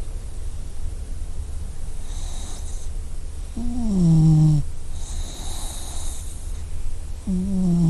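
Puppy snoring: one pitched snore that falls in pitch about halfway through, and another starting near the end, with a faint high whistle on the breaths between them and a steady low rumble underneath.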